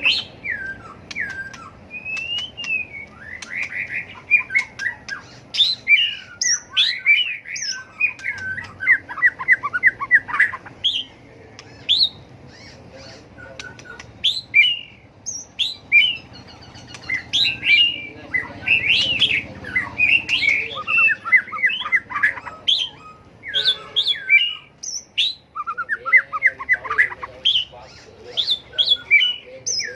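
White-rumped shama singing its contest song: rapid, varied phrases of whistles and chattering notes, broken by short pauses.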